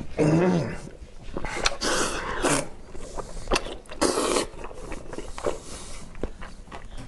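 Close-up sounds of a man eating braised pork belly with his hands: wet sucking, slurping and chewing in irregular bursts, with a brief low hum of the voice near the start.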